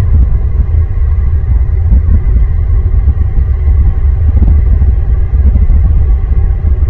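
A loud, steady low rumble with no clear pitch, fluttering unevenly in level throughout.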